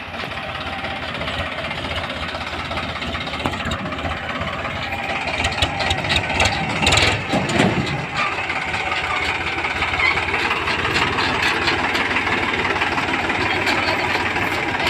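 Powertrac 439 tractor's three-cylinder diesel engine running steadily. It grows louder with some clanking about seven to eight seconds in as the tractor pulls up close, then settles back to a steady run.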